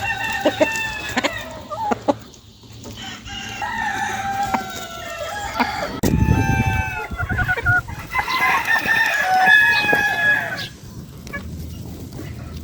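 Several chickens calling and clucking over one another in long, drawn-out stretches.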